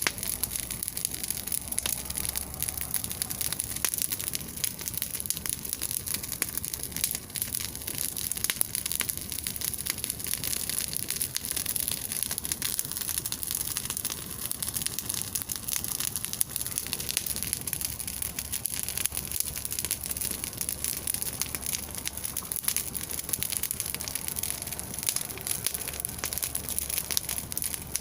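A large bonfire burning, crackling steadily with a dense run of small snaps and pops.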